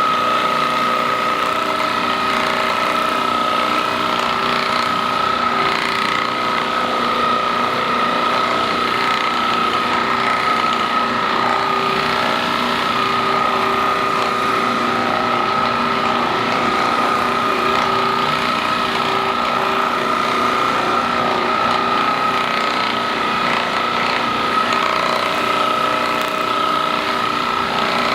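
Percussion massage gun running steadily with a constant high motor whine, working over a patient's muscles to relax them.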